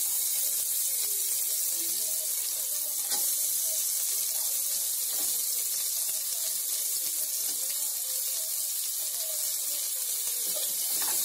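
Freshly added chopped onions sizzling in hot oil in an aluminium pressure cooker, a steady hiss, with a few light scrapes of a steel perforated ladle stirring them.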